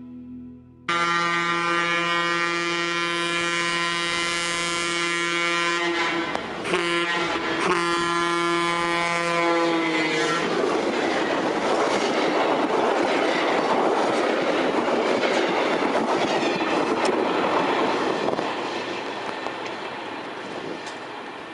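A locomotive's multi-note air horn sounds two long blasts with a short break between them. Then a stainless-steel streamlined passenger train rushes past close by, its wheels and rails making a loud rushing noise that fades near the end.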